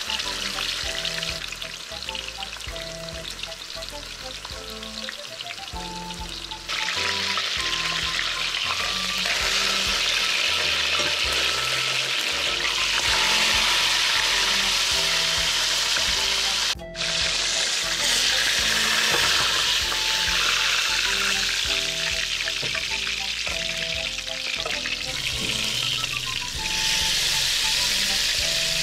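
Flour-coated trout frying in hot oil in an aluminium pan: a steady sizzle that jumps louder about seven seconds in and drops out for an instant near the middle. Soft instrumental music runs underneath.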